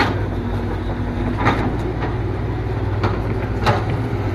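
Excavator running with a steady low hum, with a few short sharp clanks scattered through it.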